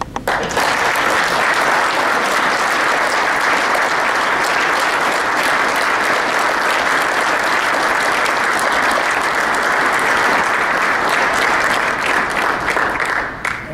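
Audience applauding, a steady round of clapping that eases off near the end.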